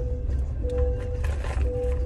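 Music playing in a moving truck's cab, with held melody notes about once a second over the steady low rumble of the truck on the road.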